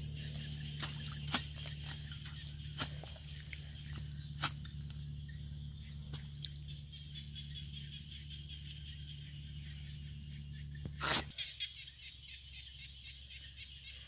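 A long metal pipe jabbed repeatedly into a muddy grass bank, giving sharp knocks about every second and a half, with the loudest knock near 11 seconds. A steady low hum runs underneath and cuts off just after that.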